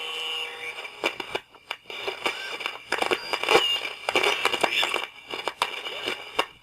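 Radio being tuned across the dial: crackling static broken by clicks and dropouts, with steady whistling tones at first and short whistles sliding in pitch as the tuning moves.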